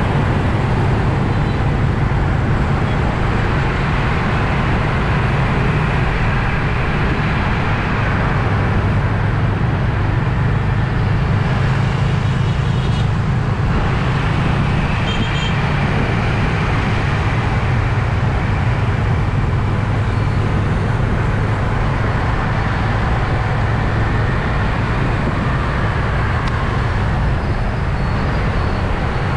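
Motorbike riding through traffic: a steady low engine hum under heavy wind and road noise on the bike-mounted action camera.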